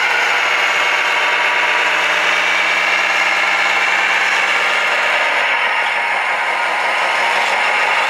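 Radio-controlled Mack dump truck running: a steady, engine-like drone, with a low hum under it that drops out about five and a half seconds in.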